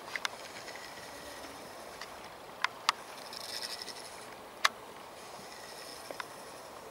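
Oars rowing an inflatable PVC boat on a river: soft splashing and trickling of the blades in the water, with about five sharp knocks, the loudest a little past halfway.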